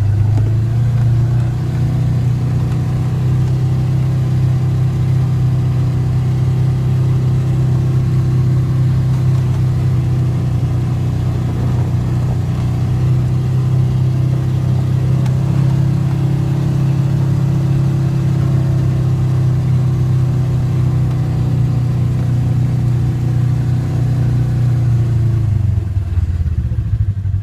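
ATV engine running steadily at a near-constant speed, its pitch wavering slightly, then dropping away near the end.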